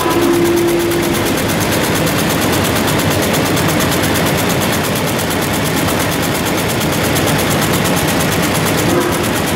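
Automatic warp knotting machine running while it ties warp threads, its knotting mechanism making a rapid, even, steady clatter.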